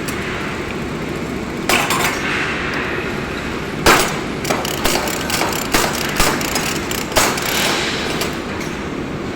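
Metal clicks and knocks from tightening a strapping band, a single click early, the loudest knock about four seconds in, then a quick run of clicks, over a steady background hum.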